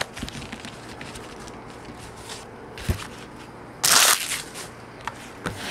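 Trading-card packs and foil wrappers being handled on a tabletop: light rustling and small clicks with a soft knock, then about four seconds in a brief loud crinkle of a foil card-pack wrapper.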